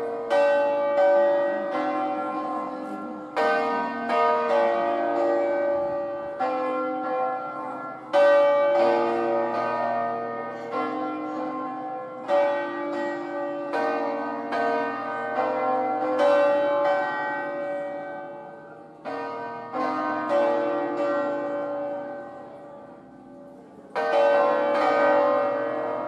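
Full peal of a five-bell church set in B-flat, cast by Felice Bizzozero in 1859 and rung by hand in the Ambrosian style, each bell swinging full circle in its wheel. Strokes fall every few seconds at uneven intervals, each ringing on and overlapping the next, with a short lull near the end before another strong stroke.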